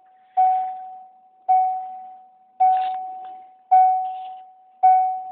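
An electronic chime dings five times at an even pace, about once a second. Each ding is a single steady tone that fades away before the next; this is the "annoying beep".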